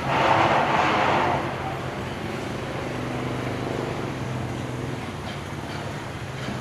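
A motorbike engine running close by in the street, loudest for the first second and a half, then a steady low engine hum.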